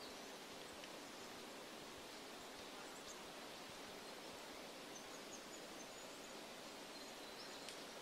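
Faint, steady forest ambience: an even hiss, with a few thin, high bird chirps, a quick run of them in the middle and a short high whistle near the end, and a couple of light ticks.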